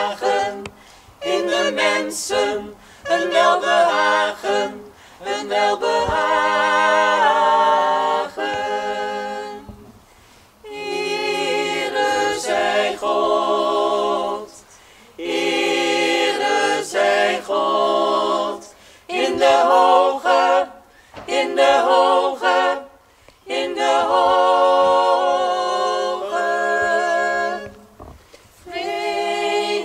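Small mixed choir of men and women singing a cappella in harmony, in phrases of a few seconds with short breaks between them.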